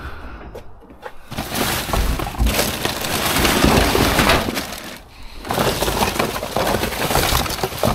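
Rubbish being rummaged through in a dumpster: a dense, continuous crackle and clatter of debris being shifted, with a brief let-up about five seconds in.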